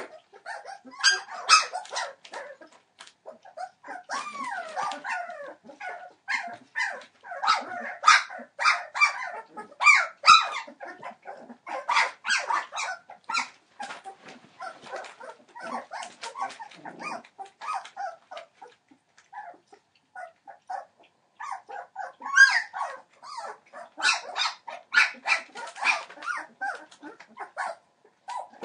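A litter of three-week-old Entlebucher Mountain Dog puppies squealing and whining in many short, overlapping calls, some sliding up and down in pitch. The calls thin out for a few seconds after the middle, then pick up again.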